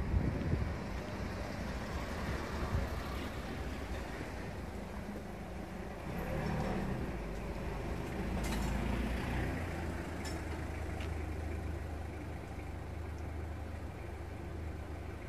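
Low rumble of road traffic outdoors: a motor vehicle running and passing, swelling for a few seconds around the middle and then easing off, with a few faint clicks.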